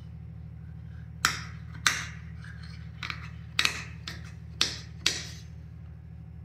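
Large tailor's shears snipping through net lace fabric: about half a dozen sharp snips at irregular intervals as the blades close.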